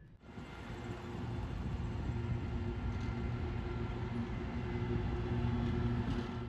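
A heavy engine running close by: a steady low rumble and hum with a few held tones, building over the first second and cutting off suddenly at the end.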